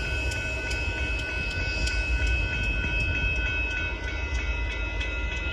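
Empty Union Pacific coal train's cars rolling through a grade crossing: a steady low rumble with clicks from the wheels, and steady high ringing tones over it.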